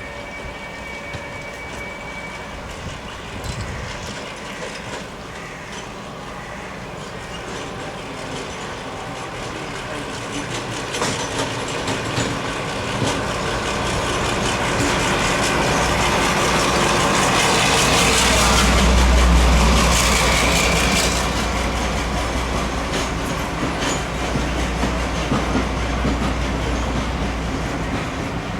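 A heritage train passing on the line, growing louder to its loudest about two-thirds of the way in with a deep rumble, then easing off a little.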